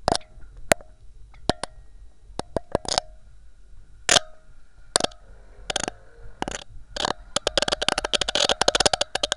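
A series of sharp clicks and knocks, spaced irregularly at first, then a fast rattling cluster in the last two seconds: a small keychain camera knocking against the inside of a 4-inch PVC well casing as it is pulled up.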